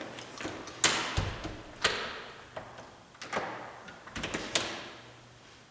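Deadbolt and door being worked against the strike plate: four sharp clicks and knocks about a second apart, with a couple of duller thumps between them. The bolt is catching on the edge of a misaligned strike plate.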